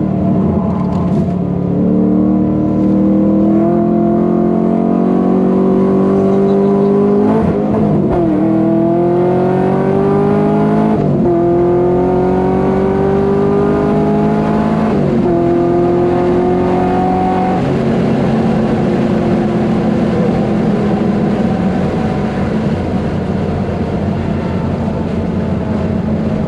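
LS3 V8 in a Nissan 350Z accelerating hard through the gears: the engine note climbs, drops back at each of three quick upshifts, then holds a steadier, slowly falling pitch for the last several seconds.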